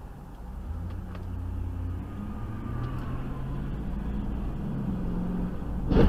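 Car engine and road noise heard from inside a moving car, growing steadily louder, with a sudden loud burst of noise right at the end.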